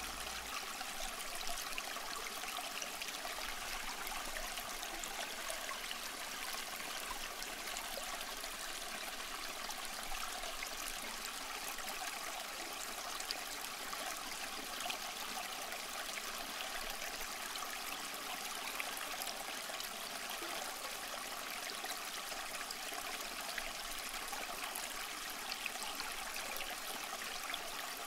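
Steady trickling of running water, an even hiss of flow with faint small ticks and no change throughout.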